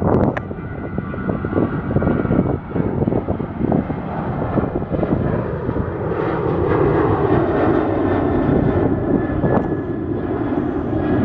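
Airliner engines, a steady rumble that grows louder about halfway through and eases off near the end, with wind buffeting the microphone in the first half.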